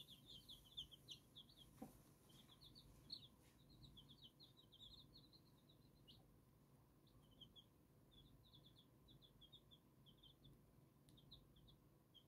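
Silver Laced Wyandotte chicks peeping softly, a quick run of short high cheeps that thins out after about six seconds.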